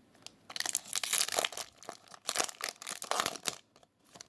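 Foil Yu-Gi-Oh booster pack wrapper crinkling and tearing open, a run of rustles lasting about three seconds.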